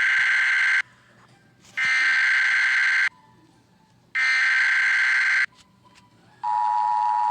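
Emergency Alert System SAME header: three bursts of data tones, each a little over a second long, about a second apart. About six and a half seconds in, the steady two-tone EAS attention signal starts and carries on, marking the start of a new alert.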